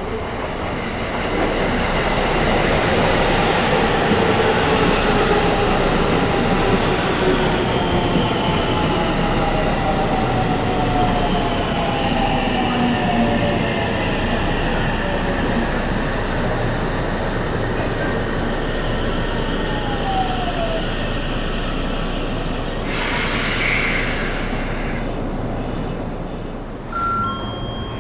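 JR Central 313 series electric train running past at the platform, its Toshiba VVVF inverter whine made of several tones falling slowly in pitch as it brakes, over loud wheel and running noise. A short burst of air hiss comes near the end as the train draws to a stop.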